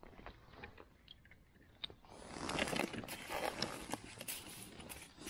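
A few faint clicks, then from about two seconds in, close rustling and crunching of a winter jacket and handling noise as the angler shifts on the ice with a freshly unhooked perch.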